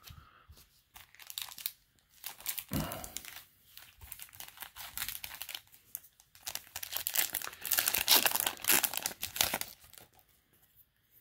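Foil Yu-Gi-Oh! booster pack crinkling and being torn open in the hands, in irregular runs of crackling that are loudest in the second half and die away near the end.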